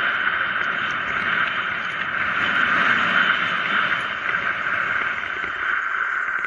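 Steady rushing hiss of wind and tyre noise from a mountain bike coasting fast downhill on asphalt, heard through a bike- or helmet-mounted action camera.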